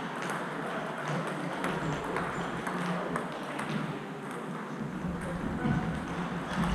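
Table tennis rally: the ball clicking off the bats and the table in quick alternation, a string of short sharp ticks.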